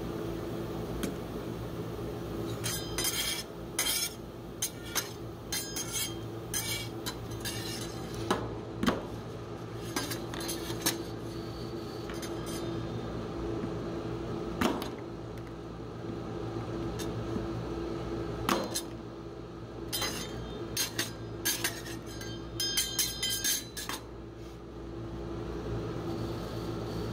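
Metal spatulas clinking, tapping and scraping on a stainless-steel ice cream cold plate while chopping pieces of chocolate, in irregular clusters of sharp taps with a few single harder strikes. Under it runs the steady hum of the rolled-ice-cream machine.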